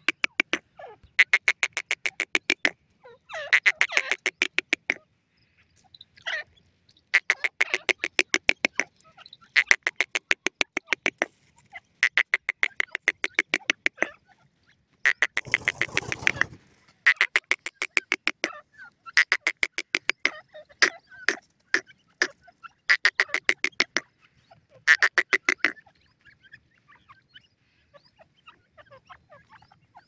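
Francolin (teetar) calling in a long series of rapid rattling phrases. Each phrase is about a dozen clicks a second and lasts about a second and a half, and the phrases are repeated every couple of seconds. A short rustle breaks the series about halfway through, and the calling stops a few seconds before the end.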